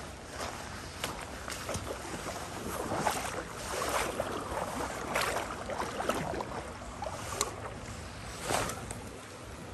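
River water sloshing and splashing in irregular surges, as of legs wading through a shallow river, with a few small knocks.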